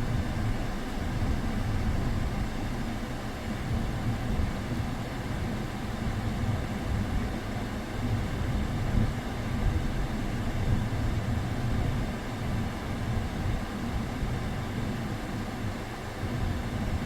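A Hyundai Avante's engine idling steadily with the freshly recharged air conditioning running.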